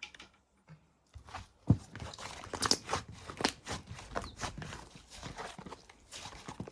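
Slime being squeezed and worked by hand: a quick run of sticky crackling pops and squelches that begins about a second in, with one louder thump near the start.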